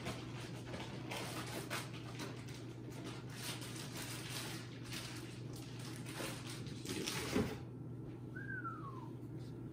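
Rustling of a plush Sherpa fleece blanket as it is handled and felt, a run of soft scrapes that stops about seven and a half seconds in. About a second later comes one short high whine that falls in pitch, over a steady low hum.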